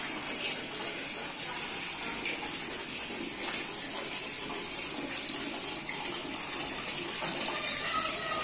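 Steady splashing of water from a small garden fountain, a stream pouring from a tipped clay pot into a basin.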